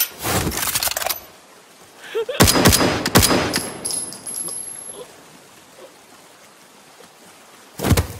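Gunfire: a rapid burst of shots at the start, then a louder volley about two and a half seconds in that rings out and fades over about two seconds, and one more short shot near the end.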